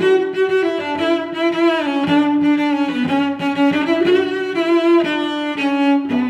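Background music: a slow melody on bowed strings, sustained notes moving step by step to new pitches.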